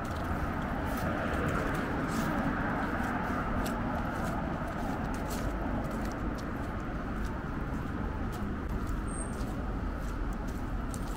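Steady city street noise: a constant hum of traffic, with light, irregular footsteps clicking throughout.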